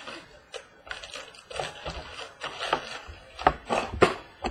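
A trading-card box being handled and opened: a run of light cardboard and wrapper rustles and clicks, with two sharper knocks near the end.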